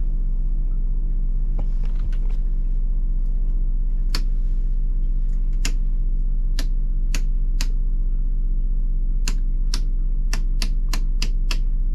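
Instrument switches on a Nordhavn 40's helm panel being flicked off one after another: a dozen or so sharp clicks, more closely spaced near the end. Under them the boat's generator runs with a steady low hum.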